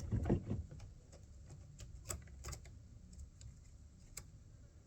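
Sparse, light clicks and ticks from a chainsaw's chain and bar being handled while the chain tension and play are set.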